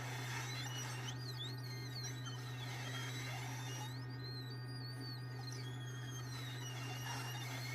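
Steady low hum of a hot-air rework station's blower running while the charging jack is desoldered from a phone's circuit board, with faint high chirping glides over it.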